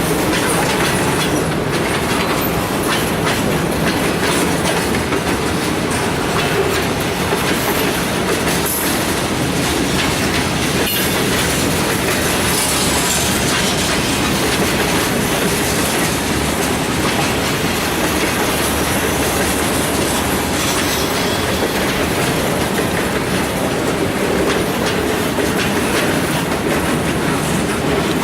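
A freight train's cars roll steadily past, their wheels clacking over the rail joints. A faint high wheel squeal comes in about halfway through.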